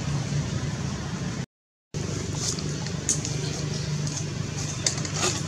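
Steady low rumble like a running motor vehicle engine. The sound drops out completely for a moment about a second and a half in, and a few short high ticks come near the end.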